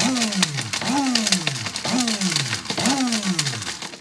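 Electric blade coffee grinder pulsed about four times, roughly once a second: each press spins the motor up, and its whine falls away as it coasts down, while hard gumball pieces clatter against the blade and cup.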